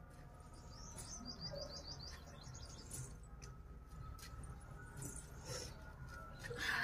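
A small bird chirping: a quick run of about ten short high notes about a second in, over faint outdoor background. A brief louder noise comes right at the end.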